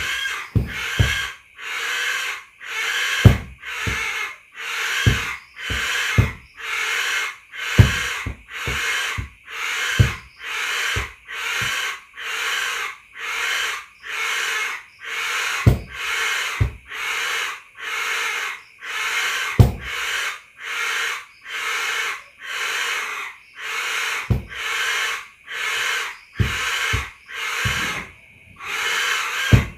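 Rhythmic hissing pulses, about one and a half a second, each short and breathy, with occasional short low knocks in between.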